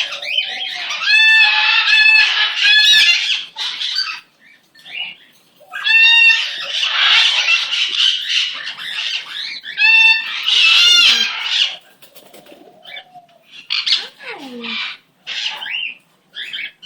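Pet cockatiels calling loudly: three stretches of shrill, repeated calls over a busy chatter, then softer, scattered chirps in the second half.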